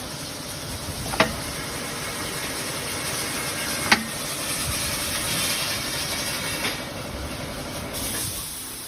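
Cat scratch board forming machine running with a steady mechanical hum and hiss. Two sharp metallic clacks come about a second in and about four seconds in.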